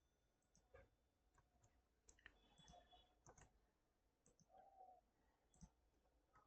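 Near silence with faint, irregular clicks of a computer mouse and keyboard being used to enter values.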